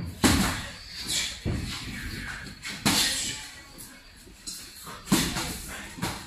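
Boxing gloves landing as punches during sparring, about five sharp blows spaced roughly a second apart.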